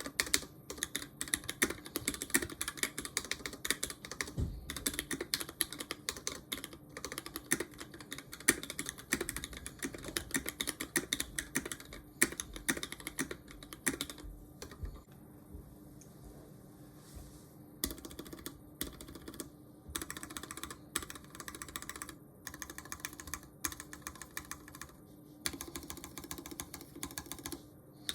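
Typing on a Tofu60 mechanical keyboard with a DZ60RGB V2 PCB and Lavender switches: a fast, dense run of key clicks that thins to a few scattered strokes about halfway through, then picks up again.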